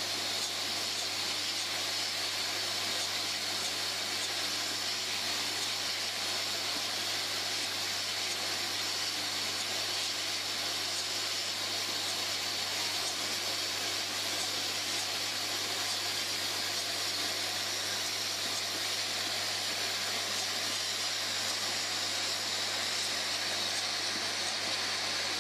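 Bottle hopper unscrambler running: a steady hissing mechanical noise over a low hum as it feeds small plastic bottles through its orienting chute onto the conveyor.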